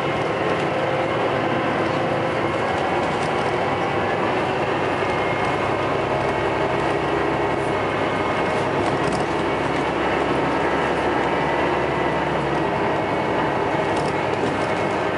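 Scania L94UB bus's diesel engine and ZF automatic gearbox heard from inside the passenger saloon: a loud, steady engine drone with whining tones over road noise. A few light rattles of the bodywork come through, one near the end.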